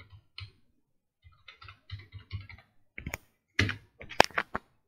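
Computer keyboard typing: a run of quick keystrokes, then a few louder, sharper key strikes about three to four and a half seconds in.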